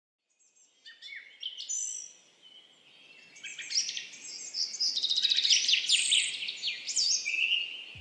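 European goldfinches twittering and singing in quick runs of high, rapidly rising and falling notes. The song starts sparse and becomes busier and louder from about three and a half seconds in.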